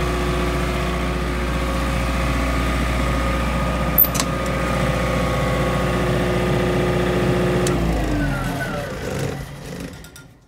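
A 25 kW WhisperWatt diesel generator running steadily, with a sharp click about four seconds in. About eight seconds in, the engine is shut down and its pitch falls as it winds down to a stop.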